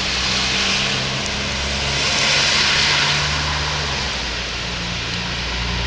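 A vehicle running: a steady low engine hum with a hiss that swells and fades about two to three seconds in.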